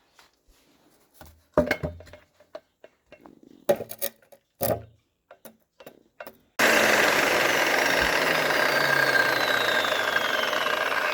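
A series of separate metal knocks and clanks from repair work on tractor axle parts. About two-thirds of the way in, a loud steady machine noise starts abruptly and keeps running.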